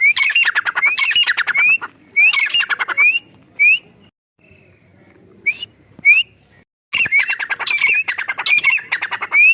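Francolin (teetar) calling: short, rising whistled notes repeated again and again, mixed with bursts of rapid, harsh rattling notes. There is a quieter gap about halfway through before the loud calling resumes.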